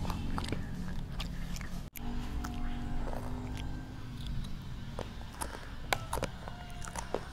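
A toddler biting and chewing a crunchy snack right at a clip-on microphone, in a run of short crisp crunches, over background music.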